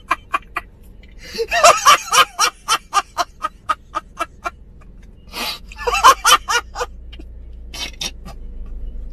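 A man laughing loudly and hard in rapid "ha-ha-ha" pulses, about four a second, in several bouts with short breaks between them.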